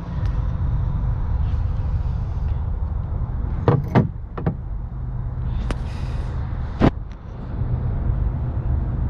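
A steady low rumble with a few sharp knocks and clicks, hand tools knocking on the ATV's metal parts, a cluster about four seconds in and one more near seven seconds.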